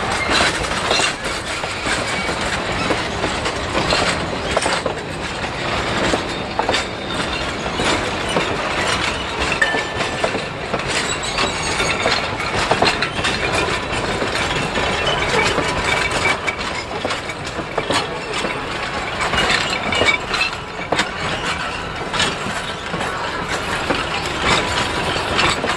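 Steam-hauled heritage train running along the track: a steady rumble and rattle of the carriages, broken by many irregular clicks and knocks from the wheels on the rails.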